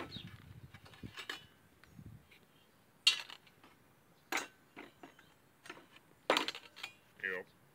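Small welded steel pieces clinking against each other as they are handled: several sharp, separate clinks a second or so apart.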